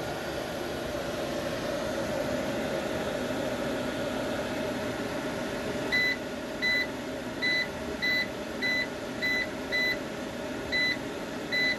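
EG4 6500EX inverter's cooling fans running with a steady hum. From about halfway, a string of about nine short beeps at uneven spacing from the inverter's control panel as its buttons are pressed to scroll through the display menu.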